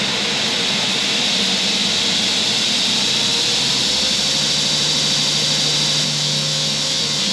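Workshop dust collector and 2x72 belt grinder running with a loud, steady whoosh and hiss. A low hum joins about four seconds in and drops out near the end.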